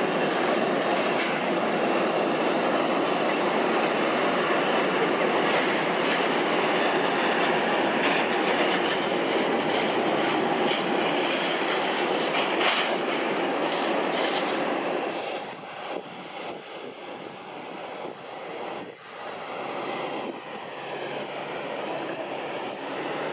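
Airbus A380's four jet engines running at taxi power as the airliner taxis past: a steady loud rush that eases about two-thirds of the way through as it moves away, with a thin high whine coming in at the same time.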